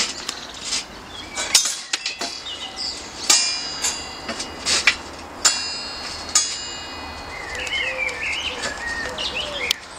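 Birds chirping and a pigeon cooing, over a series of sharp clicks and a few metallic clinks that ring on for about a second.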